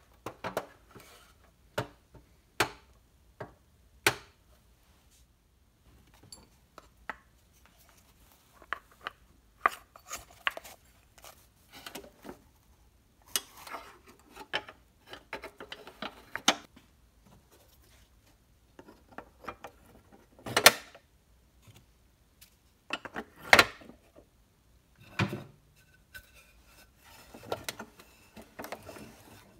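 Wheels and steel axle rods being fitted to a 1960s Mighty Tonka dump truck's steel chassis: scattered metallic clicks, taps and knocks with handling and rubbing between them, and two louder knocks about two-thirds of the way through.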